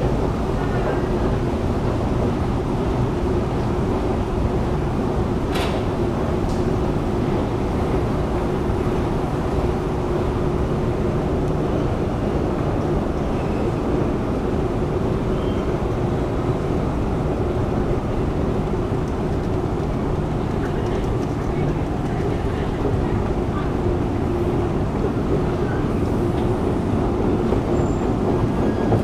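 Long escalator running under a rider: a steady mechanical drone with a constant low hum, and one sharp click about five and a half seconds in.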